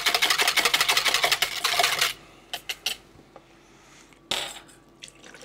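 Wire whisk beating yeast and water in a mixing bowl, a rapid run of rhythmic clicking strokes that stops about two seconds in. A few light clicks and a single knock follow.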